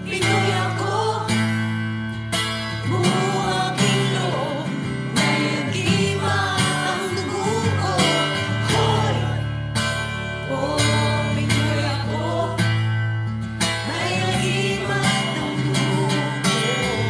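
Background music: a guitar-backed Tagalog song in a passage without sung words. A wavering melody line runs over strummed guitar and a steady bass.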